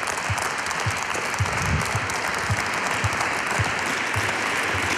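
Small seated audience applauding, a steady patter of many hands clapping.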